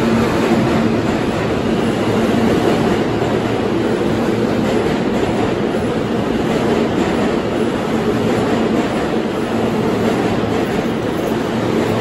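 New York City subway train running along the platform of an underground station: a steady, loud noise of wheels on the rails and running gear, with a faint steady hum.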